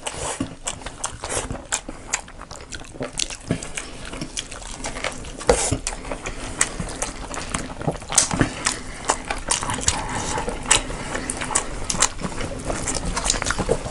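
People eating a rice-and-curry meal close to the microphone: wet chewing with many small, irregular mouth clicks and smacks.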